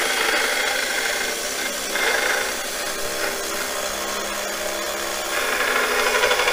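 Harbor Freight 1x30 belt grinder, converted to a DC motor, running, with the bevel of a steel lathe scraper being ground on the belt; the sound gets louder and brighter about five seconds in.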